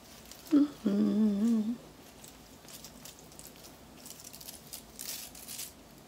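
A woman hums: a short 'mm' about half a second in, then a longer wavering 'hmm' lasting nearly a second. After that come faint crackling rustles as Velcro hair rollers are pulled out of her locs.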